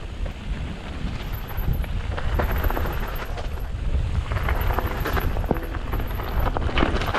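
Mountain bike riding down a dirt singletrack: wind buffeting the camera's microphone with a low rumble, tyres rolling over dirt and stones, and the bike rattling and knocking over bumps. From about halfway the tyre noise grows louder and rougher as the bike crosses onto loose gravel.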